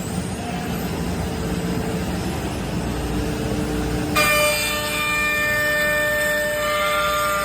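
CNC router running with a steady mechanical rumble; about four seconds in, a louder high-pitched whine of several steady tones suddenly sets in and holds.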